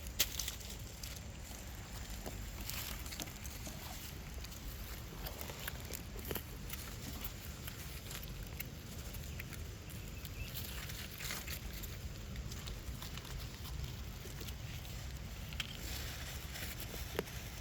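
Outdoor ambience: a steady low rumble with scattered small clicks and brief rustles.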